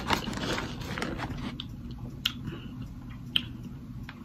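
A person eating close to the microphone: sipping a smoothie through a straw, then chewing, with a few sharp mouth clicks.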